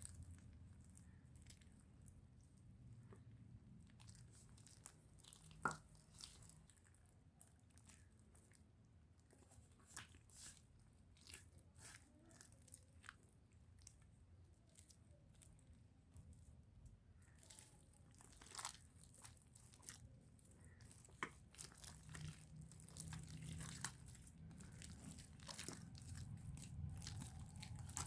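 Faint sticky crackles and clicks of slime being mixed and worked, irregular and busier in the second half, over a low steady hum.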